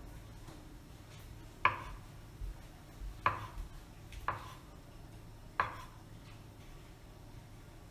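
Kitchen knife cutting through ham and knocking on a wooden cutting board: four sharp chops at uneven intervals, with a few softer taps between.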